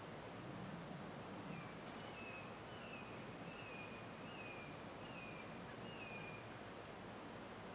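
A bird calling: a run of about seven short notes, each dipping down in pitch, starting about two seconds in and spaced well under a second apart, with faint high chirps now and then over a steady background hiss.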